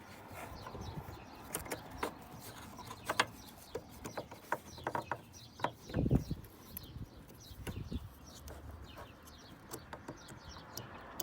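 Light plastic clicks and knocks of the LED headlight bulb's wiring connectors being handled and plugged together, with birds chirping faintly in the background.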